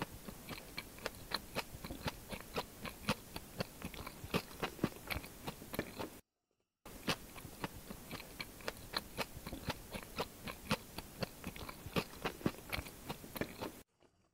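Close-miked chewing of food, with many crisp crackling clicks over a steady hiss. It cuts out for about half a second around six seconds in and stops just before the end.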